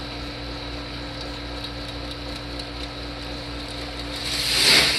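Model roller coaster running: a steady small-motor hum with faint regular ticking, then the train rattles along the track past the microphone, rising to a loud rush near the end.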